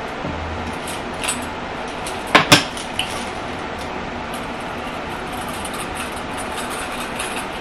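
Steady background hiss with a sharp double clink of small hard objects about two and a half seconds in, and a fainter click a second before it.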